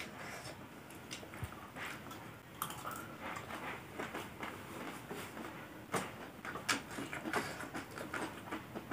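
Quiet eating sounds: scattered soft clicks and crunches from metal spoons scooping and from chewing a crunchy noodle-snack salad.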